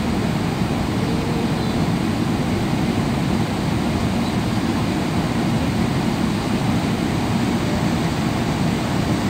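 Steady low rumble of engine and air noise inside the cabin of a Boeing 777-300ER, heard from an economy seat.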